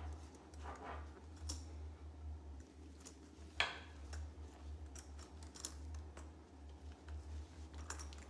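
Packaging being handled during an unboxing: scattered light rustles and small clicks, the sharpest about three and a half seconds in, over a steady low hum.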